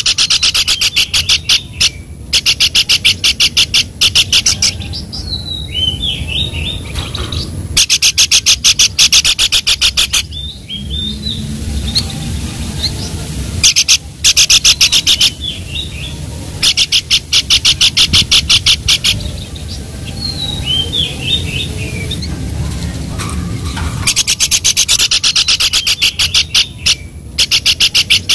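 Small songbird singing loud bursts of rapid, sharply repeated notes, each burst two to three seconds long, with a few short slurred whistles in the pauses between them.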